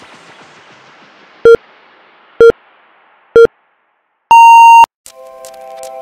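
Workout interval timer counting down: three short beeps about a second apart, then one longer, higher beep marking the end of the exercise interval. Background music fades out under the beeps and new music starts right after.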